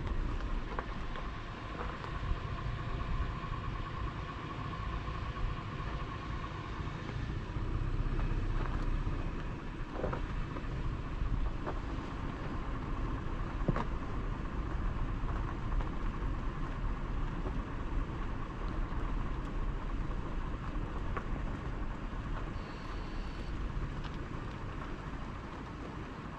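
Toyota 4Runner running and rolling slowly along a dirt road, a steady low rumble, with a couple of faint clicks.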